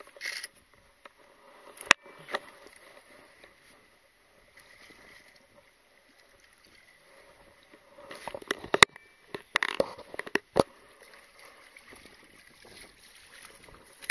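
Water splashing irregularly as a hooked carp is brought in, with a burst of splashes about two-thirds of the way through and a few sharp knocks.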